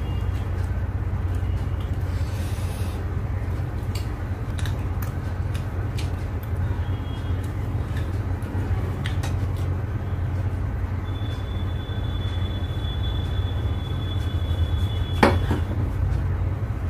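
Someone eating rice and curry by hand from a steel plate: scattered small clicks of fingers and food on the plate and chewing, over a steady low hum. A sharper knock comes about 15 seconds in.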